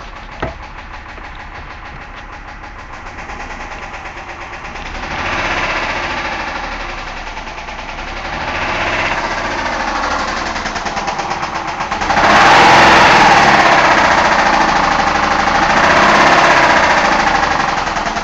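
2001 Ford Escape's 3.0-litre V6 running with a rapid knocking through it, revved up several times, the hardest rev about two-thirds of the way in. The knock is the fault the owner is recording.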